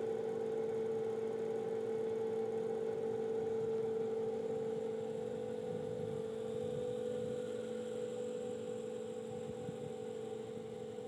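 Large Caterpillar GT5733 turbocharger cartridge assembly spinning at steady speed on a belt-driven dynamic balancing machine: a steady hum with one strong tone, easing slightly toward the end. The rotor is running in balance, at under 0.5 gram-inch.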